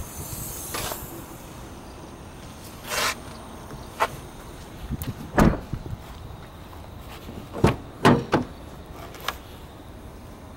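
Nissan X-Trail tailgate and rear side door being handled: scattered clicks and thuds, the loudest about five and a half seconds in, and a quick run of sharp latch clicks around eight seconds in as the rear door is opened.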